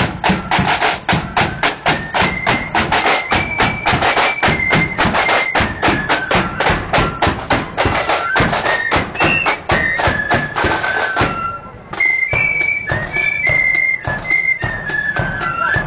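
A marching flute band playing a tune: flutes carry a high, stepping melody over rapid, even side-drum strokes. About eleven seconds in, the drumming briefly drops away, then returns sparser beneath the flutes.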